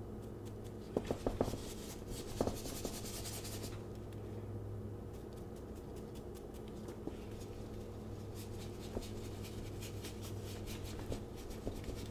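Paintbrush scrubbing in quick short strokes on a canvas, a scratchy rustle that comes in spells with two brief pauses, and a few light taps in the first seconds. A steady low hum runs underneath.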